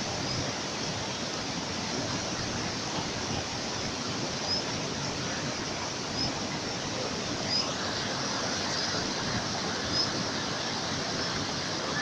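Steady rushing of whitewater river rapids, with faint short high chirps every couple of seconds.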